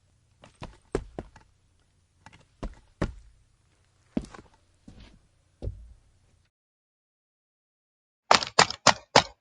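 Footsteps on concrete: single walking steps, some heard as a quick heel-then-toe double tap, which stop about two-thirds of the way through. After a short pause comes a faster, louder run of five steps near the end.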